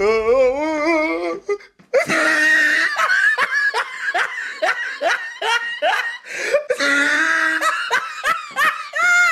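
Loud, drawn-out laughter. It starts with a wavering, pitched laugh, and from about two seconds in becomes a long rhythmic run of 'ha' bursts, two or three a second.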